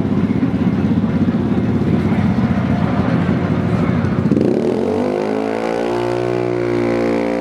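Yamaha X-Max scooter engines revving in choppy pulses, then, about four seconds in, an engine note that climbs quickly and holds at a steady high pitch as a scooter launches down the drag strip.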